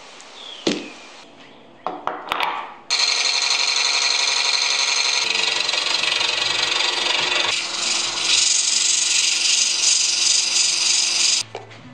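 A knock and some clatter as the work is fitted, then a wood lathe spinning a walnut and skateboard-plywood blank while a gouge cuts it, a loud steady hissing shear. In the last few seconds the sound shifts to sandpaper rubbing on the spinning wood, and it cuts off abruptly near the end.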